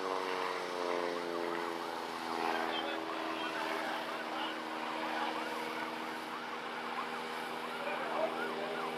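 Light propeller aircraft's engine droning as it flies past. Its pitch drops over the first couple of seconds, then holds steady.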